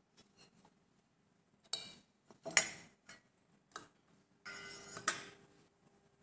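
Sharp metallic clicks and knocks as a screwdriver and hands work on a stainless-steel ceiling fan motor housing. The loudest clack comes about two and a half seconds in, and a brief metal scrape ends in another clack about five seconds in.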